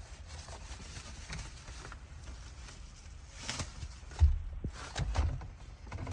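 Handling noise from working on the car's radio and dash parts: rustling and a low rumble, with a few clicks and a sharp knock about four seconds in, then more knocks a second later.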